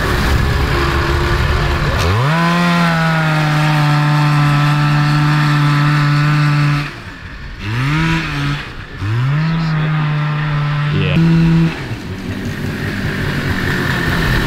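Kawasaki 440cc two-stroke snowmobile engine on a go-kart revving up and holding high steady revs for several seconds, dropping off, a short blip, then revving and holding again before falling back to a lower speed near the end. The drive belt is slipping badly, so the engine runs at high revs without pulling.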